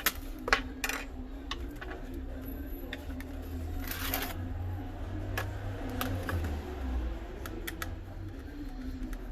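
Scattered light clicks and taps of small laptop parts and screws being handled during reassembly, with a brief scraping rustle about four seconds in, over a steady low hum.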